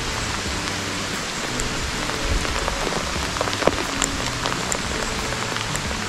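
Rain falling with a steady hiss, under faint background music of held low notes.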